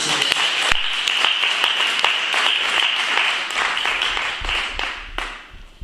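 Audience applauding: a dense spread of hand claps that dies away about five seconds in.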